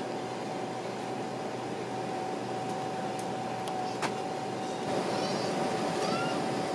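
Airliner cabin ventilation noise on the ground: a steady rush of air with a steady mid-pitched hum. A single sharp click about four seconds in as the headphone plug is pushed into the seat's audio socket.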